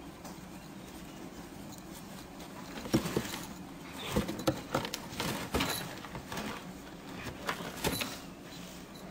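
A cat clawing and biting at a cardboard box: a run of sharp scrapes and knocks from about three seconds in until near the end, over a steady low hum.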